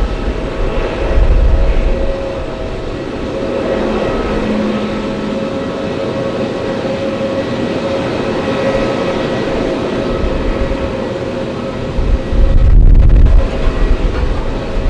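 Jet airliner engines running: a steady rush with a constant whine. Gusts of wind buffet the microphone at the start and again near the end.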